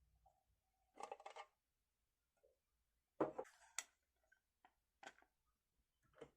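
Small hard objects being handled and set down: a brief rustle about a second in, then a sharp knock followed by a click, and a few light taps and clicks near the end.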